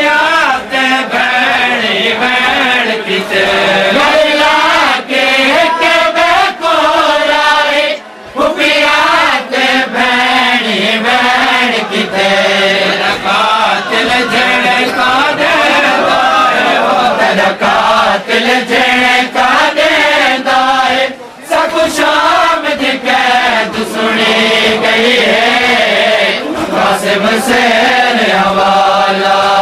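A group of men chanting a nauha, a Shia Muharram mourning lament, in a continuous sung chant that pauses briefly about 8 and 21 seconds in.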